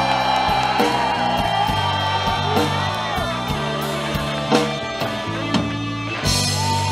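Live band with electric guitars, bass guitar and drums playing through a sustained, held section with scattered drum hits, the full band coming back in louder about six seconds in.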